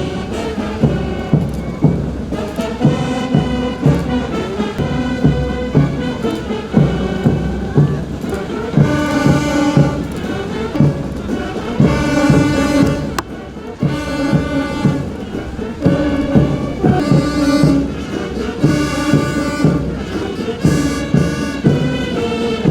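Brass band playing a march: held brass notes over a steady drum beat.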